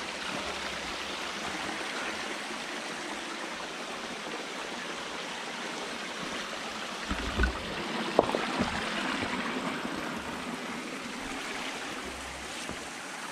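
Shallow rocky stream running steadily over stones, with a few dull thumps a little past halfway.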